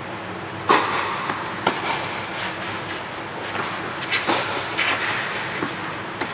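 Tennis rally: sharp pops of the ball struck by rackets and bouncing on the court, echoing under an inflatable air-dome roof. There are about half a dozen hits, and the first, just under a second in, is the loudest.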